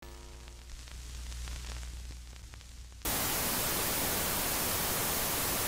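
Old-TV static sound effect: a low electrical hum with faint crackling, then, about three seconds in, a sudden loud, even hiss of white-noise static.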